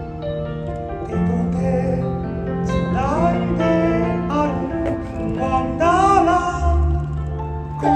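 Christmas show song: singing voices over an instrumental backing, with sung notes that glide up and are held.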